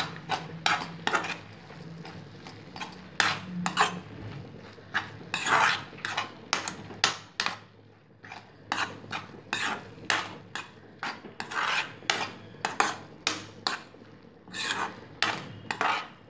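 Vegetable pizza filling (grated cabbage, carrot and capsicum with tomato sauce) being stirred in a metal pan. The stirring utensil scrapes and clinks against the pan in quick, irregular strokes, with a few longer scrapes.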